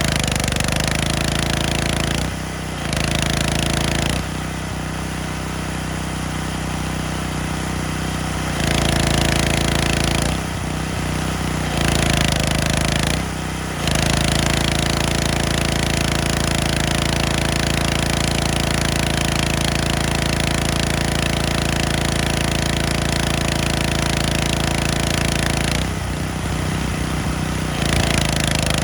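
Gas-engine pressure washer running, its engine note over the hiss of the water spray; the sound drops in level and changes several times as it goes.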